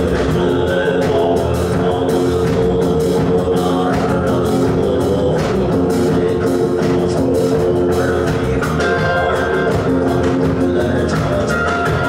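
Live rock band playing with drum kit, electric guitar and bass guitar, joined by a small folk lute and a singing voice, over a steady drum beat.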